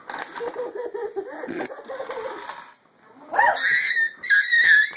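A line of dominoes toppling one after another on a wooden tabletop, a quick clattering run of clicks. About three seconds in, a young child squeals and laughs loudly.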